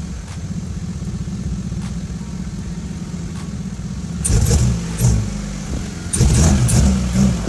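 Hyundai Avante's turbocharged engine and open exhaust running as the car drives, a steady low pulsing note that swells louder about four seconds in and again near six seconds as it accelerates. The exhaust leaks at an open clamp.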